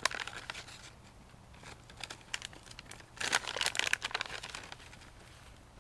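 Plastic beef jerky packet crinkling as it is handled, in two spells: briefly at the start, then louder about three seconds in.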